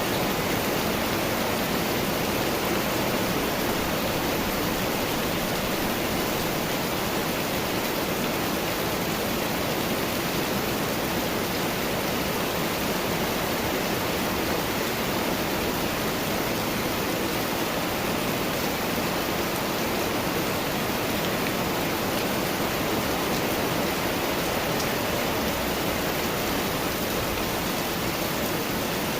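Steady rain falling, an even, unbroken hiss with no distinct drops or gusts standing out.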